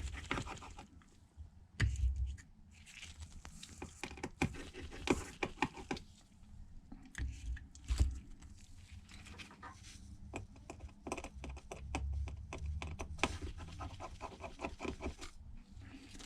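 Scattered light clicks, taps and scrapes of small hand tools working on an opened iPad Pro's internals, with a few soft handling bumps.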